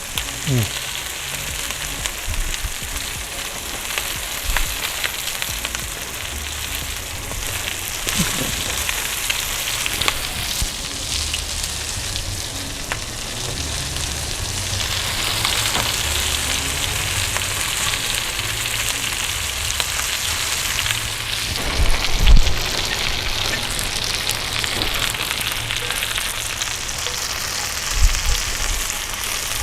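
Meatballs frying in hot oil in a skillet, a steady crackling sizzle as they brown. Now and then a light click, and one louder dull thump about two-thirds of the way through.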